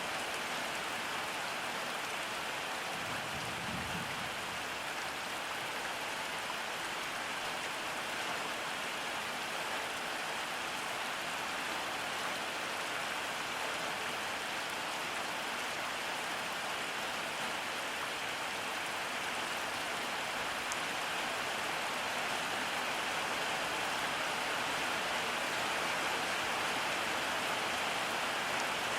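Steady rain falling and pattering on surfaces, an even continuous hiss, with a brief low rumble about three seconds in.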